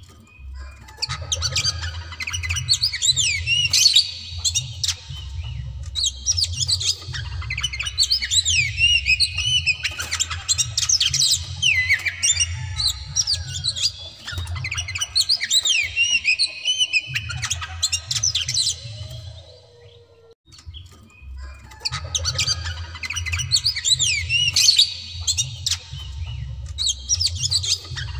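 White-breasted oriental magpie-robin (kacer) singing hard in long rapid-fire bursts of fast whistled glides and harsh notes, with a short pause about twenty seconds in. A steady low rumble runs underneath.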